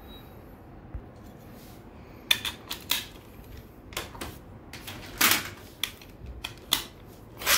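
Small sharp plastic clicks and taps as Infinity Nado spinning tops and their launchers are handled and readied for a battle, scattered irregularly with one slightly longer scrape about five seconds in.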